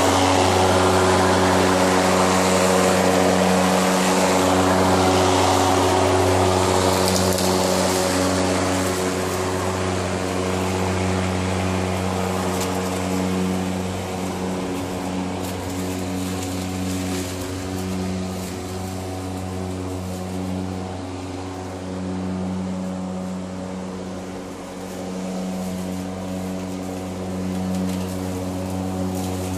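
ECHO 58-volt cordless lawn mower, its brushless motor and blade running with a steady hum while cutting grass. The hum is loudest at first as the mower passes close, fades as it moves away, and grows louder again near the end as it comes back.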